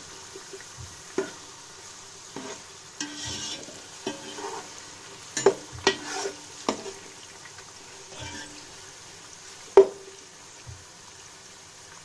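Sliced onion frying in oil in a pot, a steady sizzle, while a spoon stirs it, clacking and scraping against the pot at irregular moments; the loudest clack comes about ten seconds in. The onion is being browned in the oil before the spices go in.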